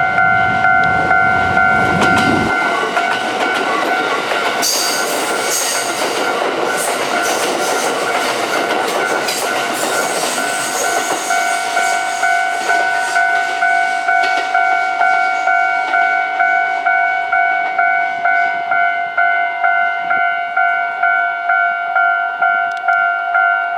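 Japanese level crossing warning bell ringing a fast, steady repeating ding while a Kintetsu 5800 series electric train passes over the crossing from about five seconds in to about fourteen seconds in, its wheels clacking over the rail joints. A low rumble stops about two and a half seconds in.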